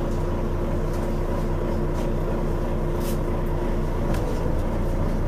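City bus engine running at low speed, heard from inside the passenger cabin as the bus slows to a stop, with a steady hum. A steady whine stops about four seconds in, and there are a few faint rattles.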